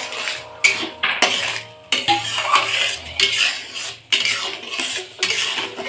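A metal spoon scraping and stirring thick tamarind chutney around a metal kadhai, in repeated irregular strokes.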